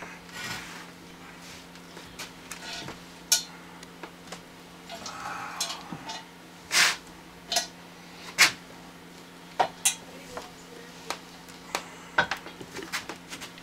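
Porcelain sink being flipped over and set down, with irregular knocks and clinks as the porcelain and its loose brass valve bodies bump against hard surfaces; the sharpest clinks come a little past the middle, over a steady low hum.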